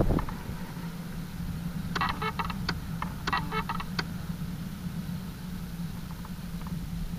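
Steady low hum, with a quick run of sharp clicks and short buzzes between about two and four seconds in.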